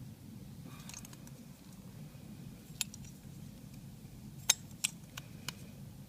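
Small metal clicks and scrapes of a thin tool prying at the back cover of a key-in-knob door lock: a light scrape about a second in, then five sharp clicks, the loudest about four and a half seconds in.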